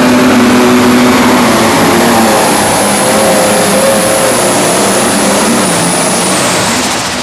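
Turbocharged diesel engine of a Case IH 7250 Pro Stock pulling tractor running flat out under load as it drags the sled. A thin high whistle sits over the engine note. Near the end the whistle dips and the engine sound falls away as the tractor winds down.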